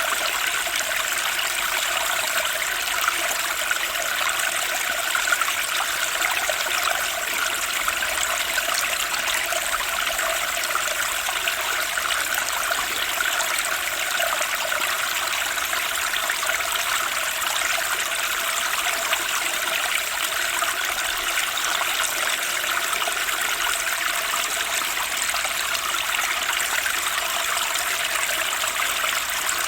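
A fast-flowing stream rushing and babbling over rocks, a steady, even splashing with no pauses.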